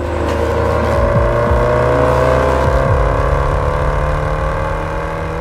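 Range Rover Sport SVR's supercharged V8 accelerating hard, its pitch rising steadily over several seconds, with background music underneath.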